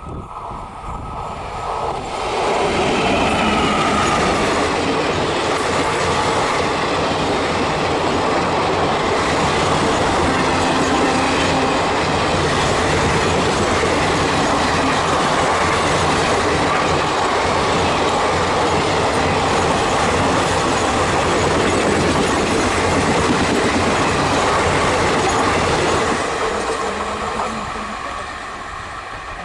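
Electric-hauled passenger express train passing on a curve: coaches rolling by with wheels clattering over rail joints and a few short wheel squeals. It builds up about two seconds in, stays loud, and fades away near the end.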